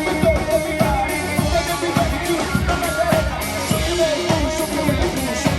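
A live band playing an upbeat pop-rock song, with a steady drum beat, guitar and a singer.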